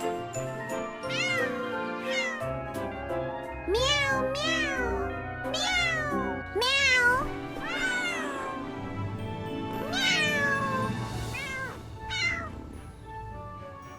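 Cartoon kittens meowing: a dozen or so short rising-and-falling meows, over soft background music.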